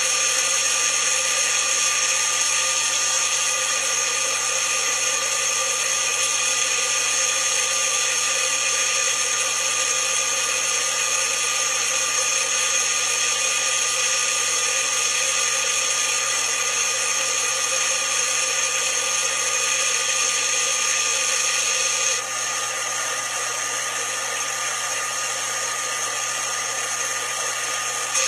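Magic Bullet blender motor running steadily, its blade grinding soaked almonds, water and dates into almond milk. The sound becomes a little quieter and duller about 22 seconds in.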